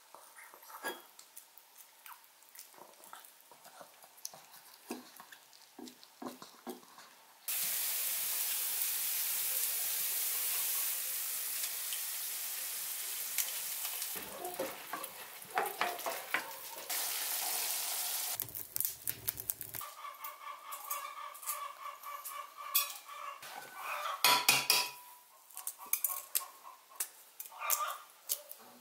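Onions and tomato paste sizzling steadily in a frying pan, starting suddenly about eight seconds in and stopping about ten seconds later. Then boiled eggs clink and knock against an enamel bowl, which rings, with the sharpest knocks a few seconds before the end.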